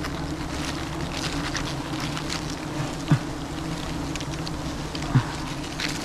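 Swarm of wild honeybees buzzing in a steady hum, the colony stirred up by smoke as its comb is cut away. Two brief louder swoops come about two seconds apart.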